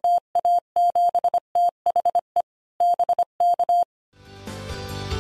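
Morse code beeps: one steady tone keyed in short and long beeps, spelling out the amateur radio call sign JA7THE. The beeps stop at about four seconds, and music then fades in and grows louder.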